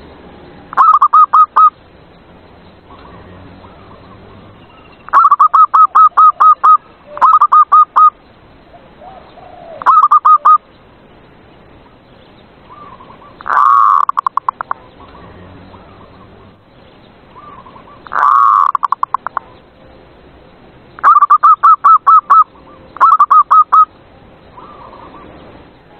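Zebra dove (perkutut) cooing: about eight phrases of quick staccato notes with pauses between them. Two of the phrases are a longer single rolling coo.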